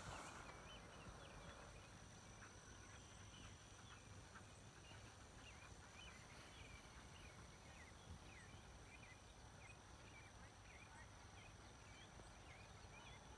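Near silence: faint pasture ambience with many short, scattered high chirps of distant birds and a thin steady high whine.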